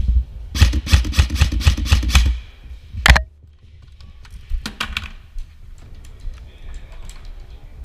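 Airsoft gun firing a rapid burst of clicking shots for about two seconds. A single louder crack comes about three seconds in, followed by fainter scattered clicks and knocks.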